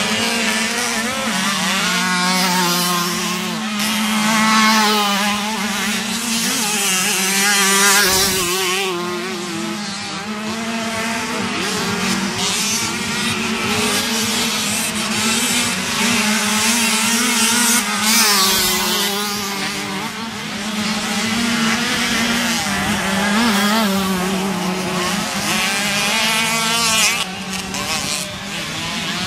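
Several 50cc two-stroke motocross motorcycles revving hard, their high buzzing pitch climbing and dropping repeatedly as they accelerate and back off, over a steady low hum.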